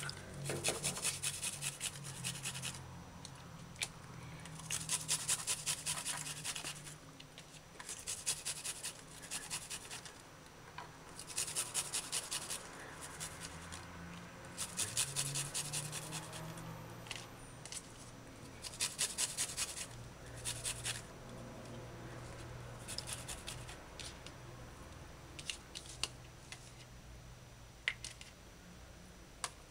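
Garlic cloves being rubbed quickly back and forth across a small handheld metal grater, shredding them fine: runs of fast scraping strokes, each run a second or two long, with short pauses between.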